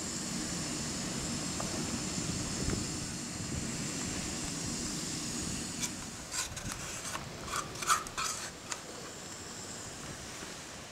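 Canister gas stove burner hissing steadily under a steel mug of water heating toward a simmer. About halfway through comes a run of clinks and knocks, the loudest near the end of that run, before the hiss drops back.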